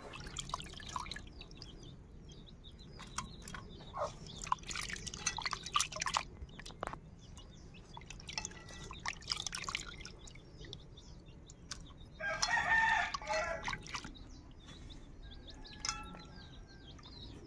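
Hands rubbing and washing small fish in a metal bowl of water: wet splashing and squelching with irregular clicks. About twelve seconds in a rooster crows once, the loudest sound, and small birds chirp faintly throughout.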